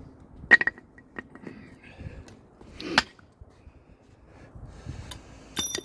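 Metal tools and parts being handled during a brake job: a few sharp knocks and clinks, then a loud ringing metallic clang near the end.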